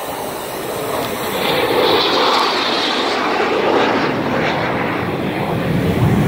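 A pair of F/A-18 jets making a low pass overhead. The jet engine roar swells about a second in, peaks around two seconds in and stays loud as they go by.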